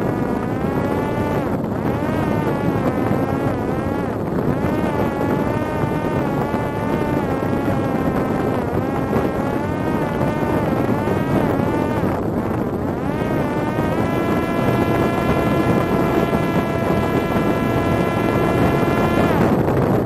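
Parrot Disco drone's electric motor and rear pusher propeller whining in flight, its pitch rising and falling with the throttle, then holding a steady high note before dropping away just before the end. Wind rushes over the microphone. The uploader says the motor's bearings had been damaged in an earlier crash and the motor then failed catastrophically.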